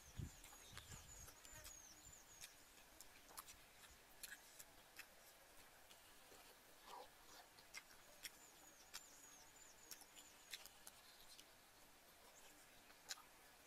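Faint close-up eating sounds: scattered sharp mouth clicks and smacks as spoonfuls of soup are taken and chewed. A faint, high chirping call, a quick run of notes, comes twice: at the start and again about eight seconds in.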